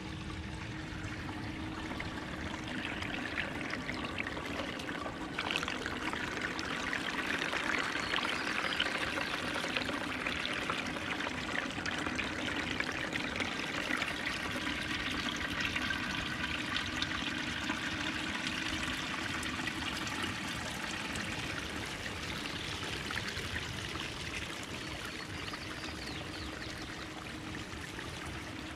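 Water pouring and trickling steadily down a gold cube's stacked sluice trays and out through a sluice as it washes scooped beach black sand, with a faint steady hum underneath.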